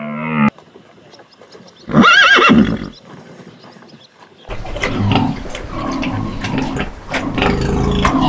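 A horse neighing once: a loud, wavering whinny lasting about a second, about two seconds in. Some seconds later comes a stretch of rustling noise with scattered knocks.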